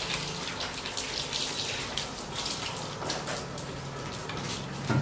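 A bundle of white insulated winding wire rustling and scraping in uneven little bursts as a coil is fed by hand into the slots of a submersible pump motor stator. A faint steady low hum runs underneath.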